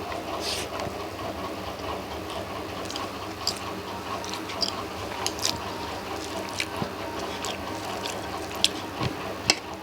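Close-up eating sounds: wet chewing and mouth smacks, with scattered sharp clicks, the loudest near the end. Under them runs the steady hum of an electric fan in the room.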